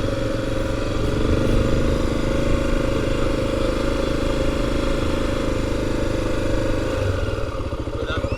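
Motorcycle engine running steadily while riding, its note falling away near the end as the bike eases off.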